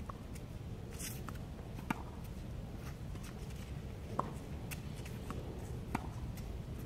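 Tennis balls struck by a racket: three sharp hits about two seconds apart, with fainter knocks between them, over a steady low rumble.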